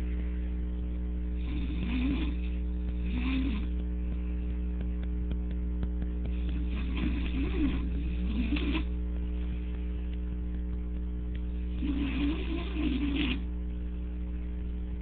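A man snoring in drunken sleep: wavering snores come in bouts every few seconds, over a steady electrical hum.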